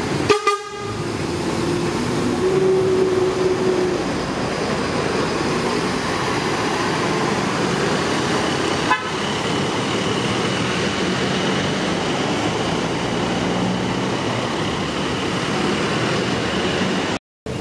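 Bus horns sounding over the steady noise of running bus engines and traffic, with held horn tones through much of the stretch.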